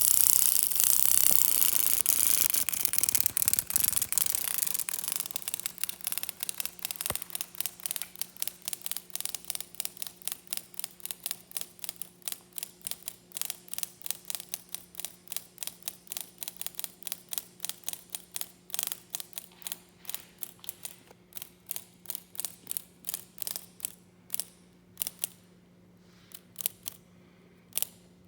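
A cicada's loud, harsh distress buzz, given while a praying mantis has hold of it, breaks up after about four seconds into a train of sharp clicks. The clicks come rapidly at first, then slow down and grow sparse and irregular as the cicada tires.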